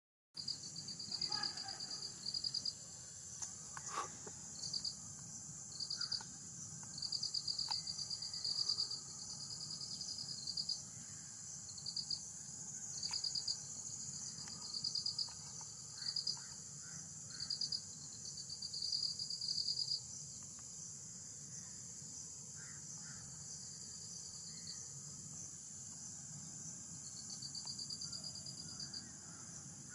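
Insect chorus: a steady high buzz with short pulsed trills from another insect breaking in every second or so, stopping about two-thirds of the way through and returning near the end. A few faint chirps and a single sharp click near the start.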